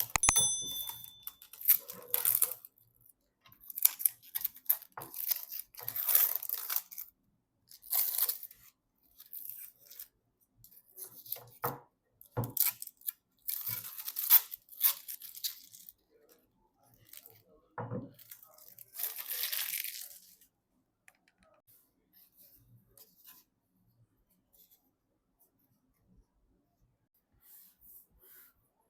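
Hands handling PC parts and packaging: a run of irregular tearing and crinkling noises, like plastic film or wrapping being pulled, mixed with short clicks and knocks.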